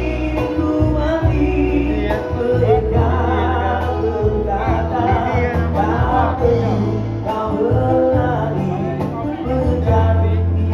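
A live band playing: a male vocalist singing through a microphone, with electric bass, guitar and hand percussion accompanying.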